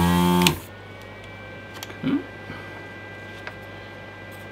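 Desoldering gun's built-in vacuum pump buzzing loudly for a moment, sucking molten solder through the hot tip, then cutting off sharply about half a second in. A few small clicks and handling knocks follow.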